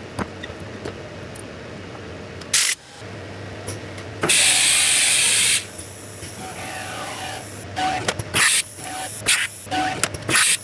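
Bursts of compressed air from a blow gun: a short blast, then a loud hiss lasting over a second, then several short blasts near the end, over a steady machine-shop hum.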